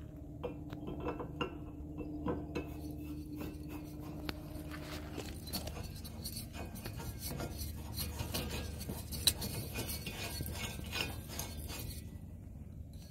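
Small metal clicks and scraping as a metal refill-adapter fitting is unscrewed by hand from the threaded valve of a 1-lb propane cylinder, with one sharp click about nine seconds in.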